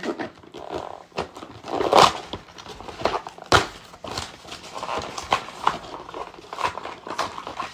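Irregular clicks and knocks of hard plastic toy figures and packaging being handled, with a few louder knocks among them.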